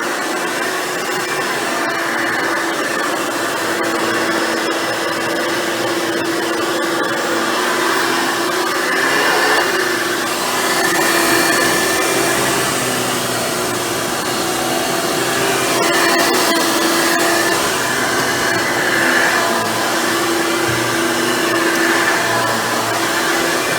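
Hoover Futura Dimension upright vacuum cleaner running steadily, a constant motor hum whose level swells and eases slightly every few seconds.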